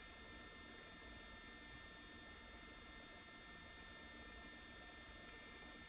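Near silence: room tone with a faint steady electrical hum and hiss.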